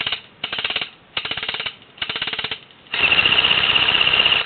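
Airsoft electric gun firing full-auto: four short bursts of rapid shots, then a longer burst of about a second and a half at the end.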